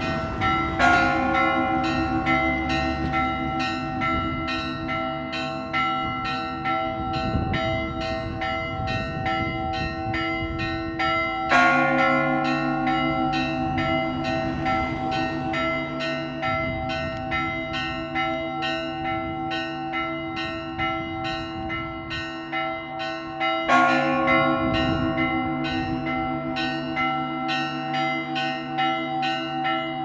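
Orthodox church bells ringing a peal: a rapid, regular run of small bell strokes over steadily ringing tones, with a heavier accented strike about every twelve seconds.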